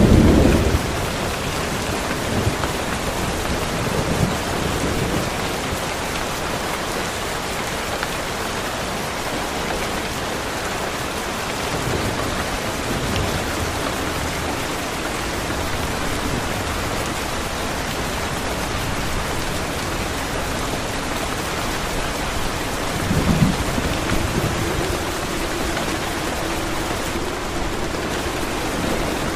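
Steady rain hissing, with thunder rumbling low now and then, the strongest rumble about three-quarters of the way through. After that rumble a faint steady low hum comes in under the rain.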